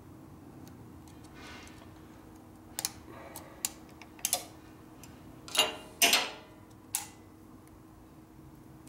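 Light clicks and a couple of short scraping rattles of small metal parts being handled, from hands and tools working on a Harley Shovelhead's points ignition assembly, loudest a little after halfway; a faint steady hum underneath.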